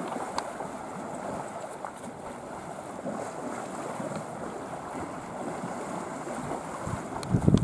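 Steady outdoor rush of water and wind around a herd of Asian elephants wading in shallow lake water, with a louder, lower rush near the end.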